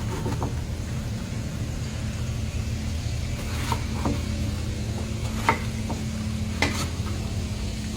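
Rat meat frying in fish sauce in a pan over a steady low rumble, with a few sharp clinks of a utensil against the pan in the second half.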